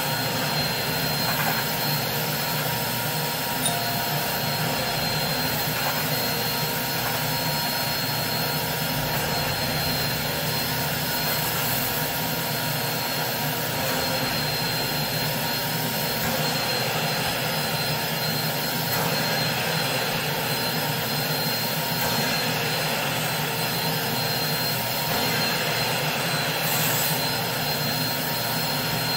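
Carpet-cleaning extractor running, its wand drawn across a wet wool rug, sucking up water in a steady rush of air with a thin high whine.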